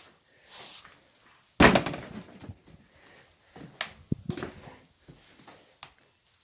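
A loud clunk about a second and a half in, then several smaller knocks and clicks, from handling the parts of an old refrigerator.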